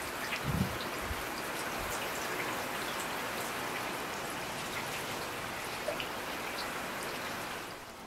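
Heavy tropical-storm rain falling steadily: a dense, even hiss with scattered drop ticks, fading out near the end.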